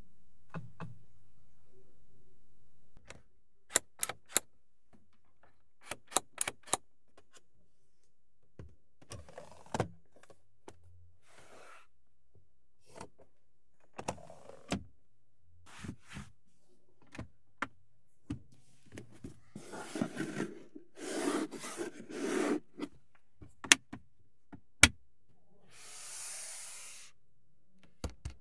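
Sharp plastic clicks and sliding, rubbing sounds of hands working a Volkswagen Passat Pro's interior controls, including a sliding centre-console cover. A low steady hum cuts off about three seconds in.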